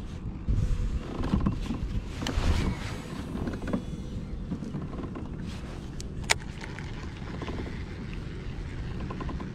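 Low wind rumble on the microphone with the rustle of handling a fishing rod and baitcasting reel, and one sharp click about six seconds in.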